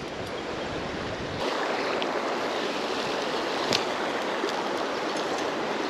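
Steady rush and splash of shallow creek water as a person wades across a rocky creek. It gets louder about a second and a half in, and there is a single short click near the middle.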